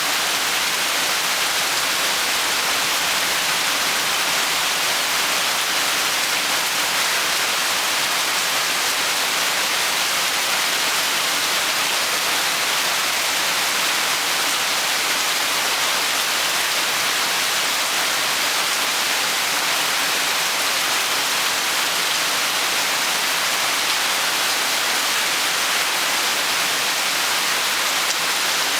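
Rain falling steadily, an even hiss that does not change in level.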